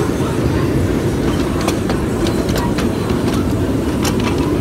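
Ride-on miniature railway train running along its track: a steady rumble with scattered clicks of the wheels over the rail joints.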